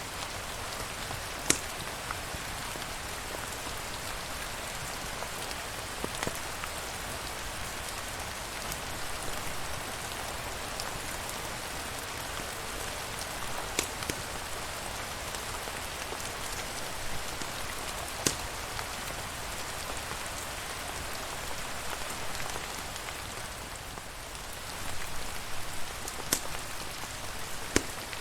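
Steady rain falling on a surface, an even hiss with about half a dozen sharp clicks scattered through it.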